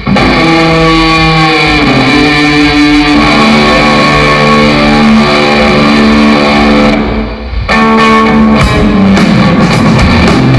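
Rock band playing loud and live: electric guitars holding sustained notes over bass and drums, with a brief lull about seven and a half seconds in before the drums hit back in.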